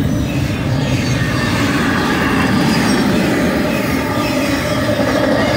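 Intermodal freight cars of a fast-moving BNSF train passing close by, double-stack container cars and then trailer-carrying flatcars: a steady, loud rumble and rattle of wheels on the rails.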